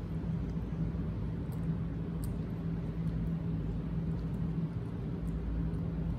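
A steady low hum with one constant tone, with a few faint, short clicks scattered over it.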